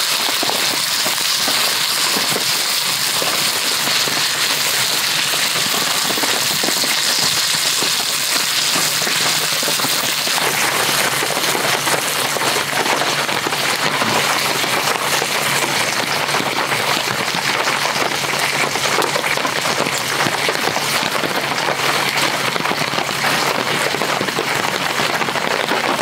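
Heavy rain falling steadily on a tarp and the forest around it. For the first ten seconds or so, slices of beef tongue sizzle in an iron frying pan over a campfire under the rain.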